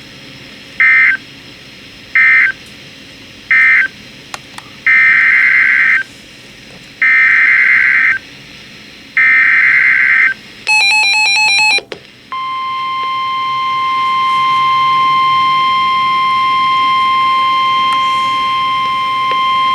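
NOAA Weather Radio emergency alert signalling. It opens with three short data bursts that close the previous message and three longer warbling data bursts that make up the SAME header of the next alert. A brief burst of rapidly alternating tones follows, then the steady 1050 Hz weather-radio warning tone, held for about seven seconds.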